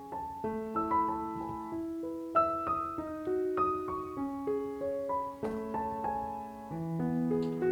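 Background piano music: a gentle melody of single notes and soft chords, a few notes a second.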